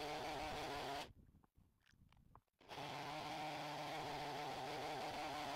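Chainsaw running steadily under load, ripping a wind-fallen oak log lengthwise in a Logosol chainsaw mill. The saw sound cuts out abruptly about a second in and comes back about a second and a half later.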